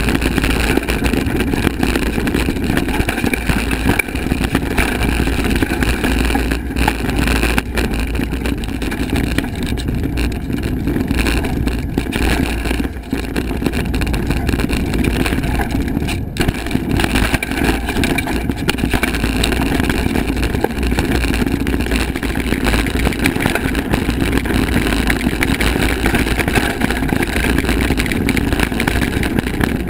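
Steady rushing wind over an action camera's microphone on a moving mountain bike, mixed with the rumble of tyres on a dirt forest trail and the rattle of the hardtail bike over bumps.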